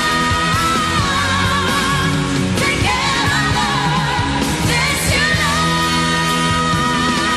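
Female pop singer performing with band accompaniment, holding long sustained notes.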